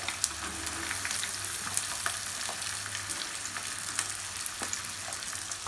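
Diced onions sizzling in hot oil in an aluminium kadai, a steady frying hiss with scattered small crackles.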